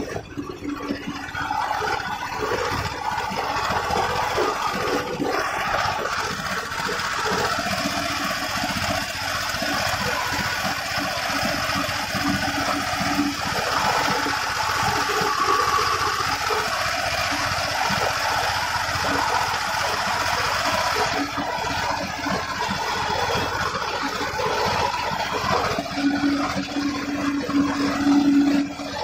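Tractor's diesel engine running steadily while tilling a field, heard from the driver's seat.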